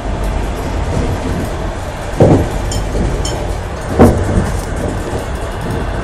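Passenger train running at speed, heard from inside the coach: a steady rumble of wheels on rails, with two heavier knocks, about two seconds and four seconds in.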